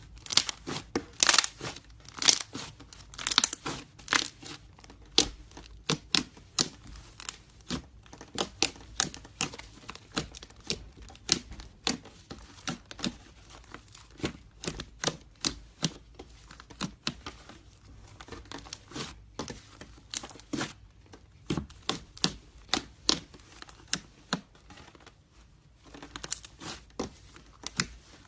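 Slime being worked by hand, giving a run of sharp pops and crackles at roughly two to three a second, with a couple of brief lulls.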